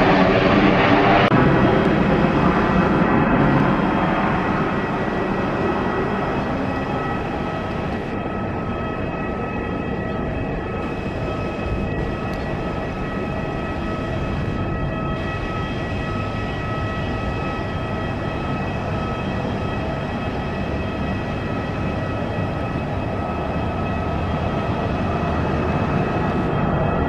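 Jet airliner engine noise from a narrow-body jet rolling along the runway, loudest at the start and dying down over the first few seconds. It is followed by a steady jet whine in several pitches over a low rumble.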